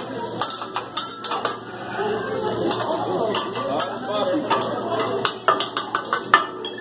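Steel spatula and knife clinking and scraping on a teppanyaki griddle in quick, irregular strikes, with the sharpest clink near the end, over background voices.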